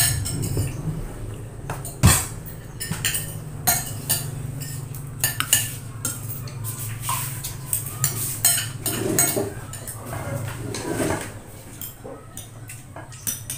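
Spoons and forks clinking and scraping on plates, and a serving spoon knocking in a metal cooking pot, in scattered sharp clinks. A steady low hum runs underneath.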